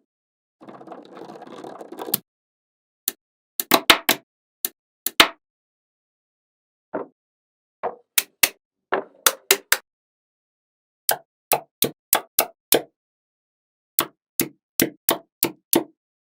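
Small magnetic balls clicking sharply as they snap onto one another, in scattered clusters of quick clicks, with a brief rattle about a second in.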